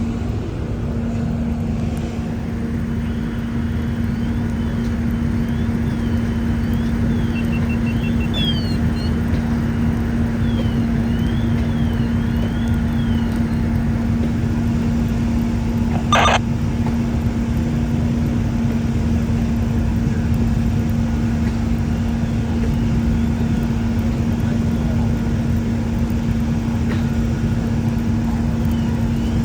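Steady hiss and low hum of an open radio scanner channel between transmissions, with a single sharp click about 16 seconds in.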